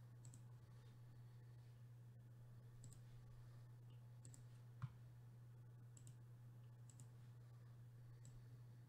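Near silence with a steady low hum and several faint computer mouse clicks spread through it, one a little louder about five seconds in.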